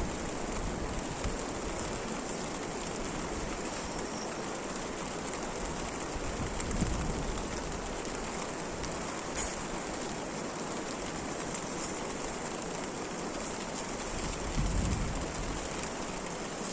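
Steady rain falling, an even hiss of drops, with a few brief low rumbles about seven and fifteen seconds in.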